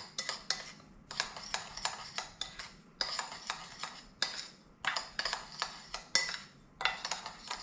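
A utensil clinking and scraping against a bowl in quick repeated strokes, about three to four a second, as dry seasonings (garlic salt, sugar, MSG) are stirred together.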